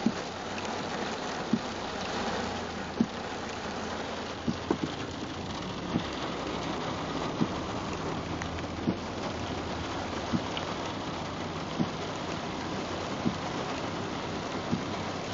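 Heavy rain falling on a car's roof and windows, heard from inside the cabin over the car's low hum. A short knock sounds about every second and a half.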